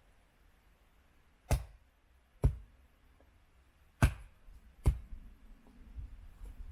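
Four sharp knocks in two pairs, each pair's strikes about a second apart.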